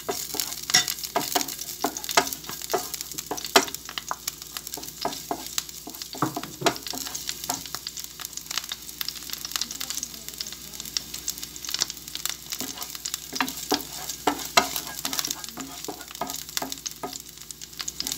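Chopped garlic sizzling and crackling in hot cooking oil in a nonstick frying pan: a steady hiss with many sharp pops. A wooden spatula stirs it toward the end.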